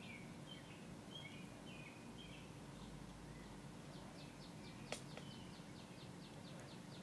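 Near silence: quiet room tone with faint high chirps in the first second or so, a single soft click about five seconds in, and a faint run of quick high ticks, about four a second, near the end.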